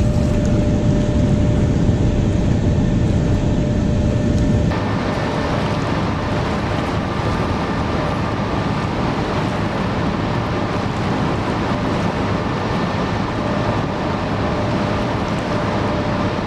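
Steady low outdoor rumble and hiss with no distinct events, which changes abruptly about five seconds in.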